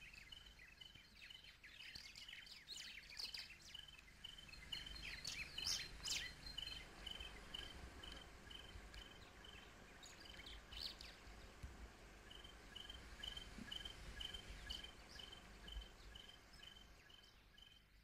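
Faint outdoor ambience: a short high chirp repeated evenly about four times a second, breaking off for about a second midway, with scattered bird calls over it and a low rumble underneath.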